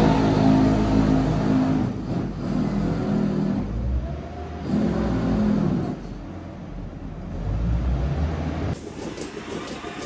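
Wheel loader's diesel engine running and revving in several surges as it spreads cubicle bedding from a bedding-spreader bucket. About nine seconds in it cuts off suddenly to a quieter background.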